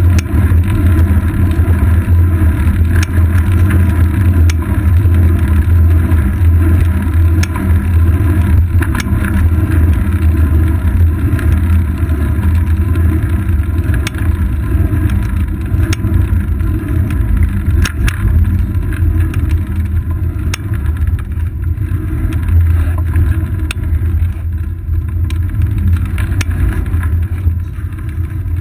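Steady, loud wind rumble and road vibration picked up by a seat-post-mounted GoPro Hero 2 on a moving bicycle, with scattered small clicks and knocks from bumps in the pavement.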